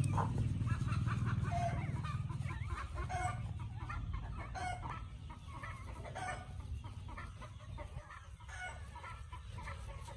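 Chickens clucking, short calls repeating every second or so over a low steady rumble.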